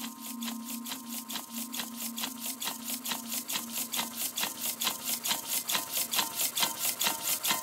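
Composed electronic soundscape: an even rhythm of short, scratchy ticks, about four to five a second, growing louder, over steady low pure tones that stop about five seconds in. Short pitched blips join the ticks in the later seconds.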